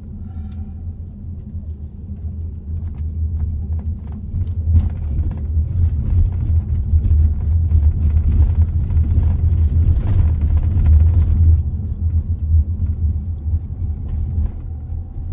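Low, steady rumble of a car driving, heard from inside the cabin: engine and tyre road noise. It grows louder from about five seconds in and eases off again after about eleven seconds.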